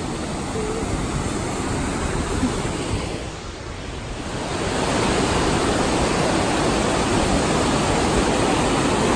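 A rushing mountain creek, white water running fast over rocks below a waterfall: a steady rush that dips briefly and then grows louder about five seconds in.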